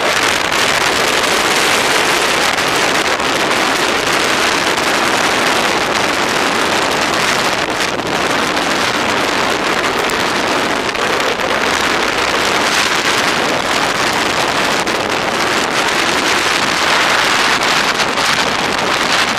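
A snowmobile running at speed along a snow trail, its engine noise merged with a steady, loud rush of wind buffeting the microphone.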